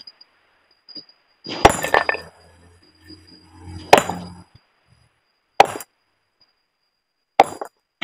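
Hand hammer striking a large stone block to split it: four sharp blows, a second and a half to two seconds apart.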